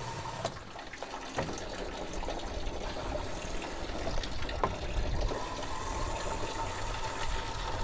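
Hose water being forced through a Fiat 500's cooling system and gushing steadily out of the disconnected coolant pipes into a bucket, flushing out the old, dirty coolant.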